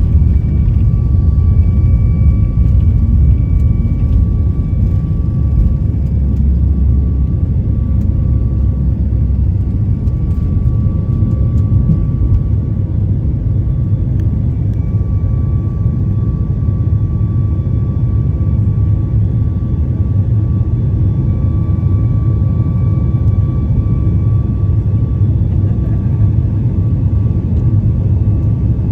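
Boeing 737 MAX 8 airliner heard from inside the passenger cabin under engine power: a loud, steady low rumble with a faint steady whine from its CFM LEAP-1B turbofans.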